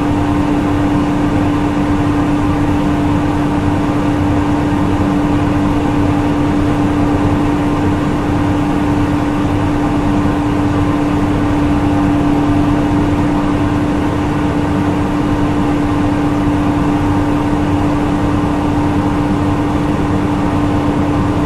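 CNG-powered Nissan Diesel city bus running steadily. Its engine note and road noise carry one strong, unchanging hum that neither rises nor falls.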